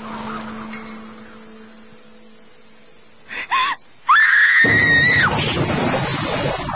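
A woman's scream of horror: a short gasp, then one long, very high-pitched scream lasting about a second, with a loud rush of noise coming in under and after it. Before that, a held musical note fades out into quiet.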